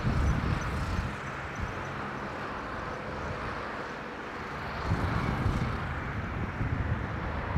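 Boeing 747-400F jet engines rumbling as the four-engined freighter rolls out along the runway after touchdown, growing louder about five seconds in, with gusts of wind on the microphone.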